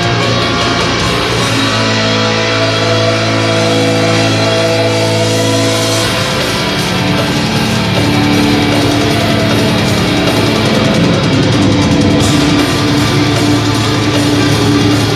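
Loud heavy metal music with electric guitar and drums. The low end grows heavier about six seconds in.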